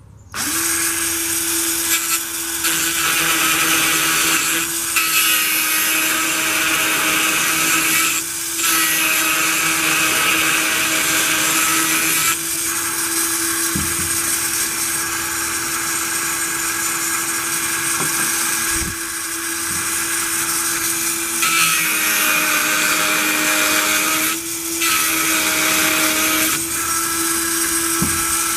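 Small high-speed electric grinder, mounted in a chain-sharpening jig, running steadily and grinding the cutters of a ripping saw chain. The motor starts right at the beginning, and the gritty grinding hiss comes and goes every few seconds as the stone is brought onto each tooth and lifted off.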